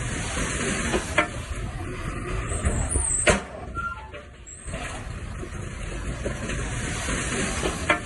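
Heavy earthmoving machinery working: a steady noisy rumble with scattered knocks. A sharp knock comes a little over three seconds in, then the noise drops for about a second before picking up again.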